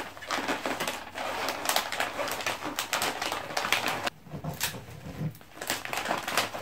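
Shiny gold wrapping paper crinkling and rustling in quick crackles as it is folded and pressed around a box, with a brief pause about four seconds in.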